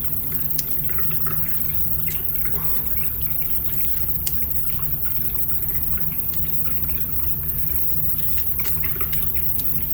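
Small, irregular clicks and taps of plastic and cardboard toy-car parts being handled and screwed together, over a steady low background hum.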